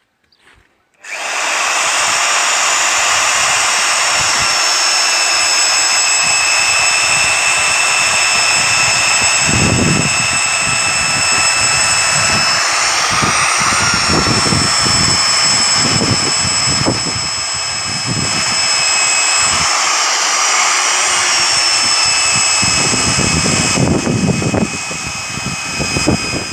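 A Rebir 2 kW low-speed drill starts about a second in and runs steadily with a high motor whine, boring a large-diameter dowel hole into a timber beam. Its pitch wavers twice as the load on the bit changes.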